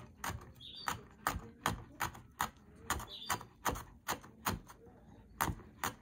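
Chef's knife chopping a green chile on a wooden cutting board: a steady run of light knocks, about three a second, with a brief pause near the end.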